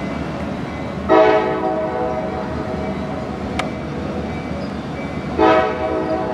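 A passenger train's locomotive horn sounds two blasts, about a second in and again near the end, each trailing off, over the steady rumble of the train.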